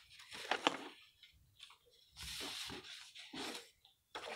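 Paper envelope being opened and handled, its paper rustling and crinkling in a few short bursts with quiet gaps between.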